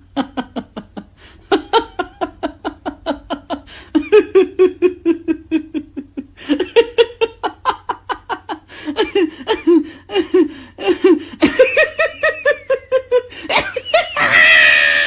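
A string of different people's laughs, cut together one after another: rapid 'ha-ha-ha' bursts at several voice pitches, several pulses a second, rising to a higher, shrieking laugh near the end.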